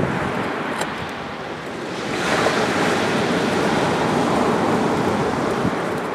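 Surf breaking on a sandy beach over a slightly rough sea. A wave swells into a broad hiss about two seconds in, holds, and eases off near the end, over the steady wash of the water.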